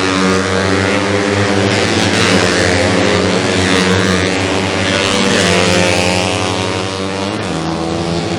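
A pack of 125 cc four-stroke underbone racing motorcycles at high revs, several engines at once, their pitches rising and falling as they pass.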